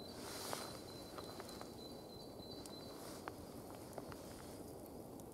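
Faint outdoor ambience with a few light clicks and taps and a thin, high steady tone that stops about three seconds in.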